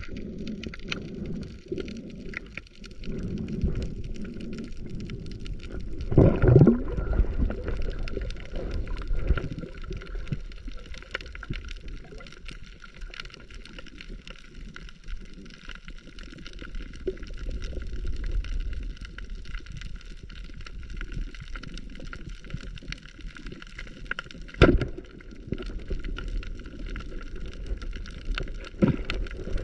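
Water gurgling and sloshing around a camera in the sea, with a low rumble and a faint steady high whine throughout. A loud gush of water about six seconds in, and a sharp knock near the end.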